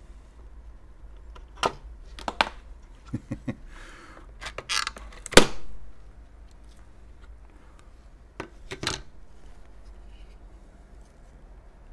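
Handling and pulling apart the modem's circuit boards and plastic parts: a run of sharp clicks and knocks, with a brief rustle just before the loudest knock about five seconds in, and two more clicks near the end.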